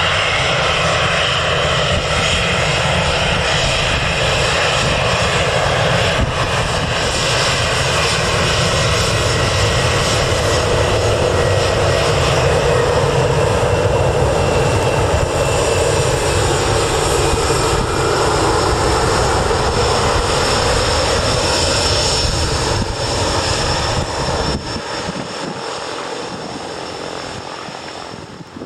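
Airbus A320 jet engines at taxi power as the airliner rolls past: a steady rumble with a high whine over it, fading as it turns away near the end.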